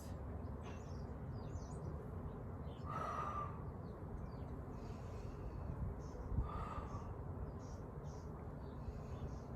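Seagulls calling: two short calls, one about three seconds in and another about six and a half seconds in, with faint smaller bird chirps over steady background noise.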